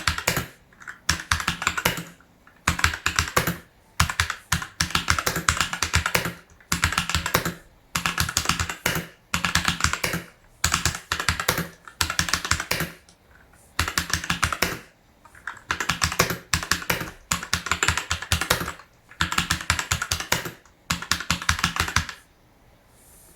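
Typing on a Fantech MK853 full-size mechanical keyboard: rapid key clicks in bursts of a second or two with short pauses between them, stopping shortly before the end.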